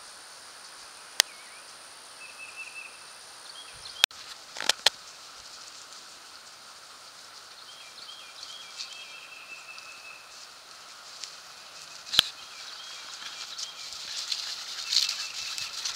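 Outdoor field ambience with faint, repeated bird chirps and a few sharp clicks. Near the end, the rustling patter of dogs' paws running through dry grass grows louder as the dogs come up close.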